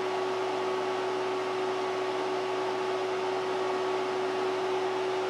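Steady whir of running bench test equipment's cooling fans, with a constant hum tone under it.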